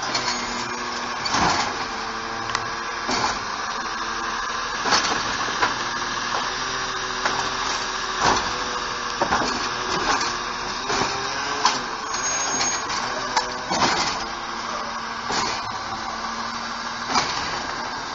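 CNG Autocar ACX refuse truck with a Bridgeport Ranger automated side-loader, its engine running with a steady hydraulic whine as the arm works the carts. Irregular clanks and knocks sound every second or so.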